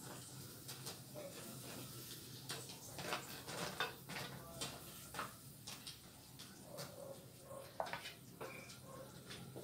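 Wooden spatula stirring crab pieces in a stainless-steel frying pan: irregular knocks and scrapes of wood and shell against the metal, over a faint low hum.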